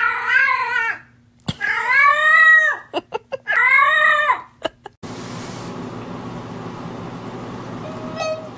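Domestic cat giving three long, wavering meows, the second the loudest. About five seconds in they give way to a steady hiss.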